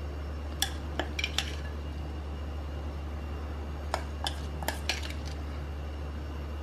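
Metal spoon clinking and scraping against a glass bowl while scooping out chopped salsa: a handful of sharp clinks about a second in, and another handful about four seconds in.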